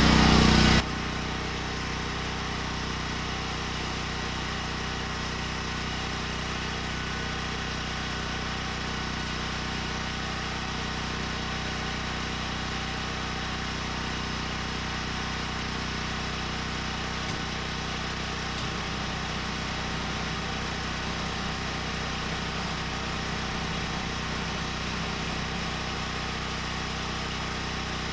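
Portable generator running steadily at an even idle. The sound drops suddenly in level less than a second in, then holds steady.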